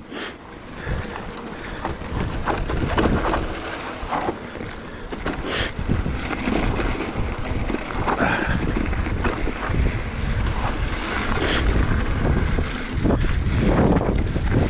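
Wind buffeting the camera microphone as an electric mountain bike rides down a dirt singletrack, with tyre rumble on the dirt and a few sharp knocks and rattles from the bike over bumps.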